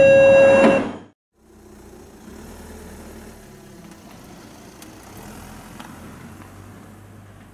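A loud two-note electronic beep, stepping down in pitch and cutting off about a second in. After a brief break comes the low steady rumble of an Underground station, with a few faint clicks.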